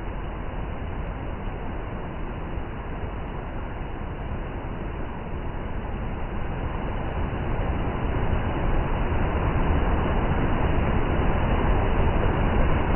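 A steady, loud rushing noise, heaviest in the low end, that grows slowly louder.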